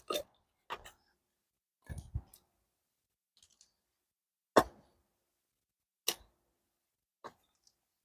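Dry oak firewood being split by hand: a series of sharp wooden cracks and knocks at irregular intervals, with quiet between them, the loudest a little past halfway.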